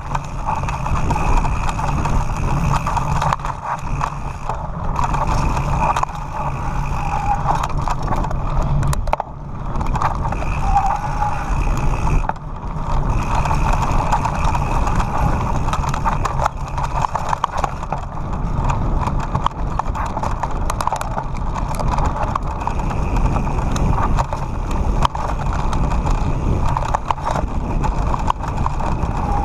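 Mountain bike ridden fast downhill over a rough dirt and stone track: continuous tyre noise on gravel with constant small rattles and knocks from the bike, and wind buffeting the camera's microphone.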